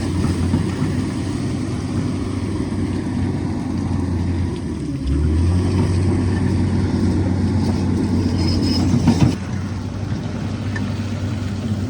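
Tata Hitachi tracked excavator's diesel engine running steadily, working harder for a few seconds in the middle, with a brief rattle before it eases back down about nine seconds in.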